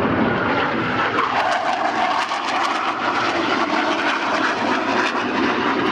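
Military jet fighter flying past low, its engine noise a loud, steady rush with crackling through it and a tone settling in about a second in.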